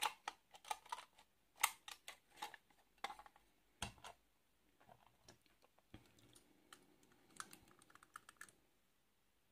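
Faint clicks and taps of a diecast metal toy truck and trailer being handled, small parts knocking together under the fingers. The clicks come thick and fast for the first four seconds, then thin out to a few light ones and stop near the end.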